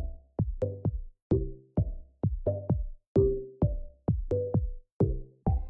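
Background music with a steady beat of struck, pitched notes, about two a second, each ringing briefly and fading.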